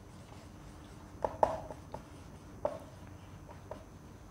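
Whiteboard marker writing on a whiteboard: a few short squeaks and taps of the tip against the board, over low room noise.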